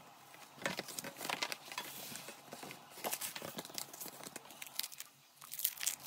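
A folded printed card insert rustling and crinkling as it is handled and lifted out of a metal tin, in a run of irregular crackles with a short lull near the end.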